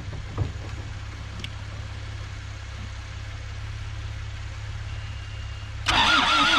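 A steady low rumble with a couple of knocks, then near the end the starter abruptly begins cranking the Isuzu P'up's four-cylinder turbo diesel, turning it over in a loud, even rhythm.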